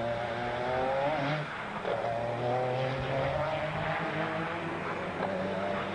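Group C sports-prototype race car engines running on the circuit, one car passing through the corner close by, its engine note rising about a second in, breaking off, then picking up again.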